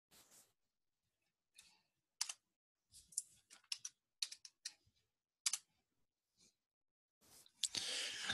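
Faint, scattered sharp clicks of a computer mouse and keys, about ten over several seconds, then a short steady hiss near the end.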